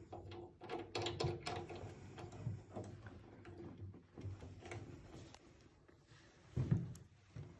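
Nut being turned by hand onto the threaded bolt of an upright piano's action bracket: faint, scattered metal clicks and rubbing, with one louder knock near the end.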